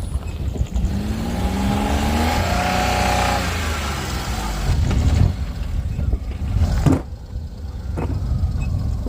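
A motor vehicle's engine running with a heavy low rumble, its pitch rising as it accelerates about a second in, then settling. A couple of sharp knocks come near the end.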